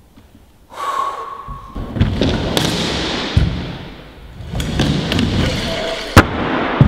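Stunt scooter's wheels rolling across plywood ramps after dropping in, with a few knocks along the way. About six seconds in, a sharp slam of the scooter hitting the wooden ramp on landing, and a smaller knock just before the end.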